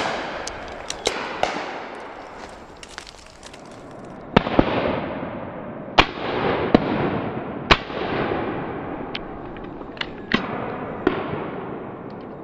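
Shotguns firing repeatedly along a line of guns, some shots close and loud, others fainter and farther off. Each crack is followed by a long echo rolling away through the wooded valley. The loudest shots come in a quick run in the middle, about a second apart.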